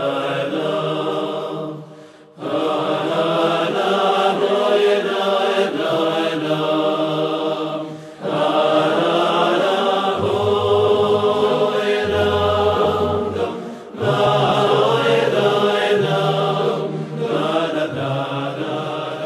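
Voices singing a slow, chant-like song in long phrases, with short breaks between them.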